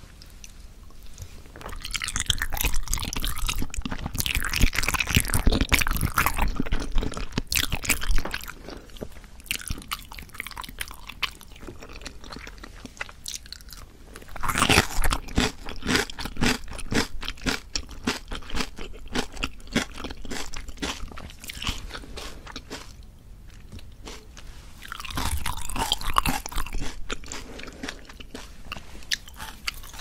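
Close-miked chewing and biting of olbangae-muk, a chewy Korean jelly made from wild water chestnut starch, with sticky mouth clicks. The chewing comes in three bouts: a long one starting about a second and a half in, another around the middle, and a short one near the end, with quieter chewing between.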